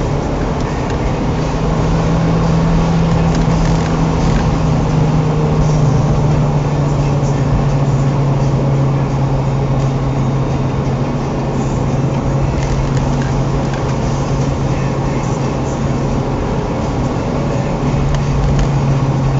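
Car engine running at steady cruising revs with tyre and road noise, heard from inside the following car; the engine note rises slightly early on and eases down slowly later.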